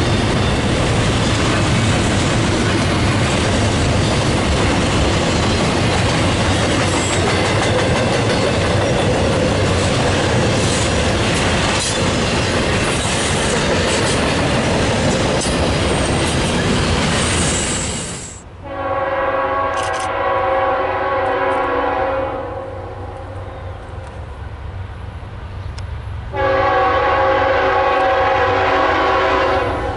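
A freight train passing close by makes a loud, steady rush of wheel and rail noise, which cuts off suddenly about two-thirds of the way through. A diesel locomotive's multi-note air horn then sounds two long blasts of about three and a half seconds each, with a low rumble between them.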